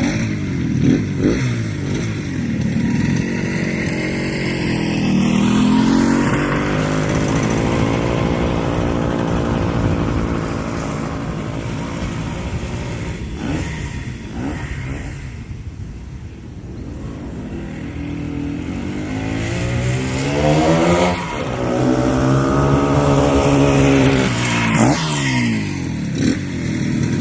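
1975 Harley-Davidson SS250's two-stroke single-cylinder engine running on its first test ride after restoration, its pitch rising and falling repeatedly as it is ridden. It is quieter in the middle and rises again in the last third.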